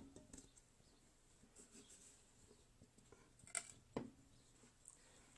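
Near silence broken by a few light handling knocks and taps as the clock is tipped onto its side: one sharp knock at the start and two clearer knocks about three and a half and four seconds in.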